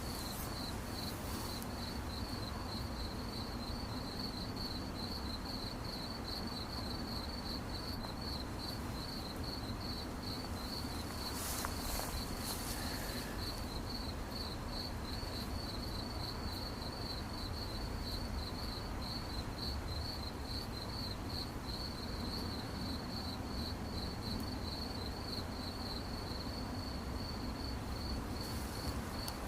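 Crickets chirping in a steady, even rhythm of short high-pitched pulses over a faint low background hum. A brief rustle-like noise comes about twelve seconds in.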